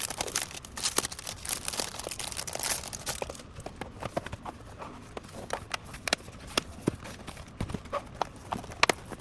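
Packaging being handled while a box is opened: rustling for the first three seconds or so, then a scattering of sharp clicks and taps of cardboard and hard parts being moved about.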